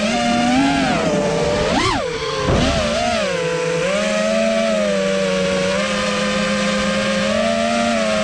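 FPV racing quadcopter's motors and propellers whining as it flies. The pitch jumps up and back down about two seconds in, wobbles again soon after, then holds a fairly even, slightly wavering whine.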